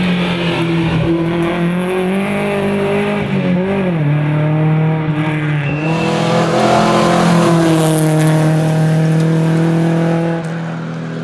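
A Volvo Amazon rally car's four-cylinder pushrod engine, pulling hard on the road. Its pitch dips briefly twice, about four and six seconds in, then holds high.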